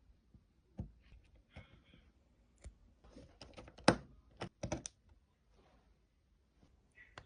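A scattered series of light clicks and knocks, thickest and loudest from about three to five seconds in, with one sharper knock about four seconds in.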